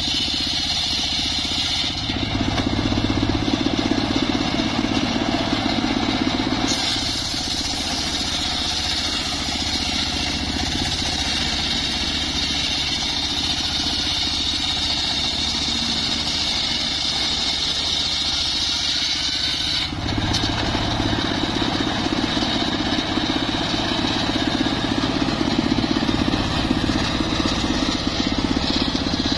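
Homemade circular sawbench ripping a log lengthwise, its motor running steadily under load while the large blade cuts along the grain. The sound changes abruptly a couple of times.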